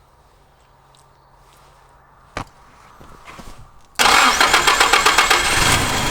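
A click, then a car engine catches and starts about four seconds in, running loud with a rapid pulsing beat.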